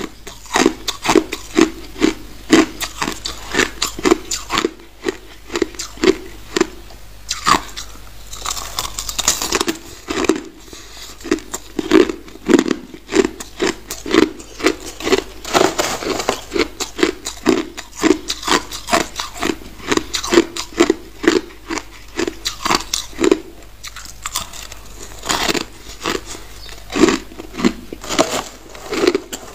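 Crushed white ice being chewed close to the microphone: sharp crunches in a steady rhythm of about two bites a second, with a few short pauses between mouthfuls.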